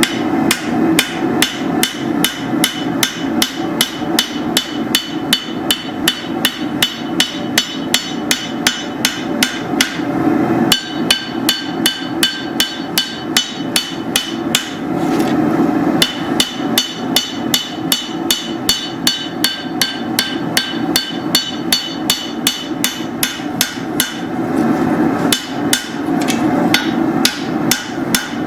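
Hand hammer striking hot steel on an anvil in quick, steady blows, about three a second, as a machete blade is forged. The anvil rings after each blow. The hammering breaks off briefly a few times, and a steady low rushing noise runs underneath.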